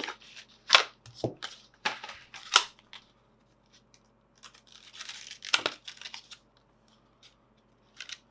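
Sharp plastic clicks and snaps, then a rustling stretch with one loud snap, as a new Crucial SSD is taken out of its plastic packaging.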